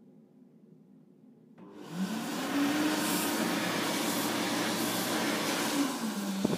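Tornado hands-in hand dryer starting up about a second and a half in: the motor's hum rises in pitch as it spins up, then holds under a steady loud rush of air, sagging briefly near the end.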